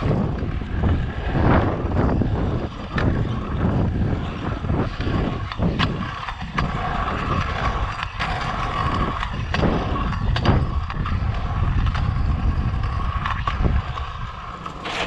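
Stunt kick scooter's wheels rolling over the asphalt rollers and berms of a pump track: a steady rumble with a whir, broken by frequent clicks and knocks.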